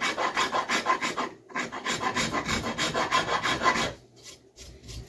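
Nicholson four-in-hand rasp, coarse side, filing a wooden axe handle in quick back-and-forth strokes to take material off fast. The strokes pause briefly about a second and a half in and stop about four seconds in.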